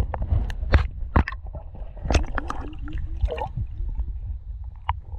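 Pool water heard underwater through a submerged GoPro: a low muffled rumble with gurgling and many scattered sharp clicks and knocks.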